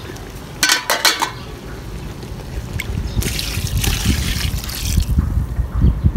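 Water poured from a bucket into an aluminium cooking pot of seasoned raw chicken, splashing for about two seconds from about three seconds in: the little water added to boil the chicken. A few sharp knocks come about a second in.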